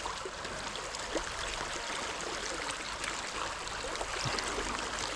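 Small trout creek flowing steadily over rocks, a continuous rushing and trickling of water.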